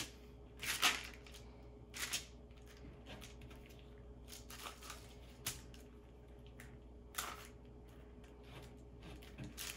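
Spatula scraping and smearing ointment across ointment paper while mixing by spatulation: a handful of irregular strokes, with softer rubbing between them.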